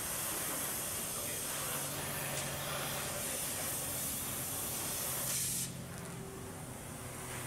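Cutting torch hissing steadily as it cuts off rusted-down exhaust Y-pipe nuts. The loud hiss drops away about five and a half seconds in and picks up again near the end.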